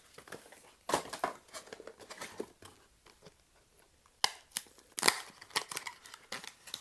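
Blind-box figure packaging being crinkled and torn open by hand: irregular crackling and rustling in short bursts, with a quieter pause around the middle.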